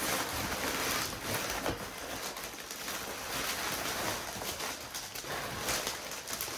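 Continuous, irregular rustling and crinkling of single-face corrugated cardboard wrapping and a plastic plant sleeve as a potted plant is pulled up out of a cardboard shipping box.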